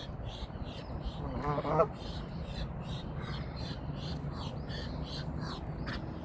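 Waterfowl at a pond calling: one loud harsh call about a second and a half in, with fainter calls repeating through the rest.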